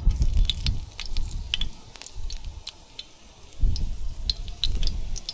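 Coconut-coated fish frying in a pan, sizzling with scattered small pops and crackles. A low rumble comes and goes over it.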